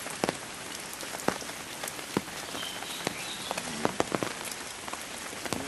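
Steady rain falling, a constant hiss with irregular sharp taps of drops striking close by.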